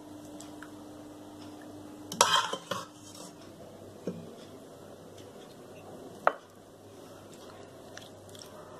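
A spoon clinking and scraping against a steel cooking pot and a china plate as curry is served out, in a few separate knocks. The loudest comes about two seconds in and a sharp single clink about six seconds in, over faint steady background noise.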